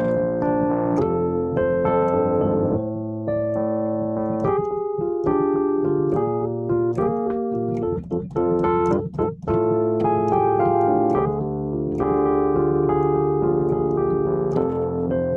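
Electric piano playing sustained chords in a wordless instrumental passage of a song, with the sound briefly cutting in and out about eight to nine seconds in.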